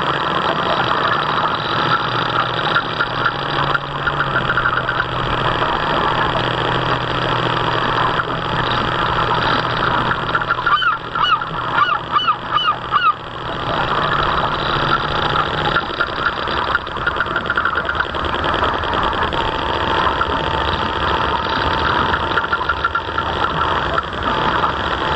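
Geese honking repeatedly, with a quick run of about five calls in the middle. Under them runs the steady hum of a radio-controlled model boat's motor.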